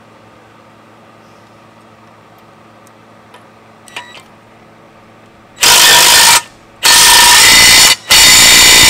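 A Ryobi 18V cordless driver with a socket run in three short, loud bursts about five and a half seconds in, spinning the propeller nut down tight on the outdrive's prop shaft.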